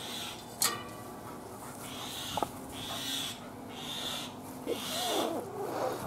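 A Staffordshire bull terrier breathing hard in puffs of hiss that come about once a second, with a few light clicks. A short wavering cry comes near the end.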